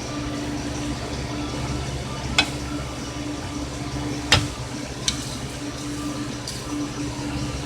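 Coal forge being fired up: a steady low hum and rumble, with three sharp cracks about two, four and five seconds in.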